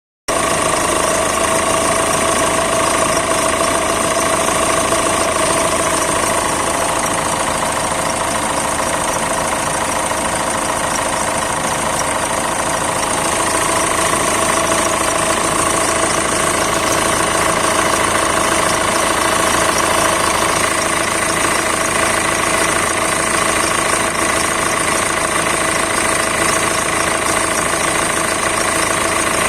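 Peugeot 407's 1.6 HDi diesel engine idling, with a steady whistle and other noises coming from the accessory drive belt, which point to a belt or belt-driven pulley fault.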